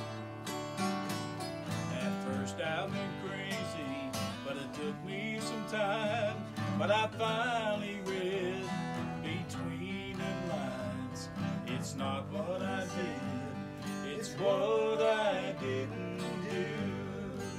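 Two acoustic guitars playing a slow country song's instrumental intro: chords underneath, with a melody line that has bent, wavering notes over them.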